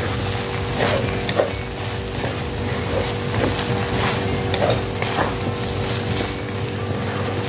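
Spatula stirring diced chicken gizzards, liver and carrot in a wok, with repeated short scrapes over a frying sizzle and a steady hum.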